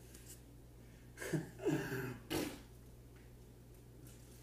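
Three short, breathy vocal sounds from a man, about a second and a half in, over a low steady hum.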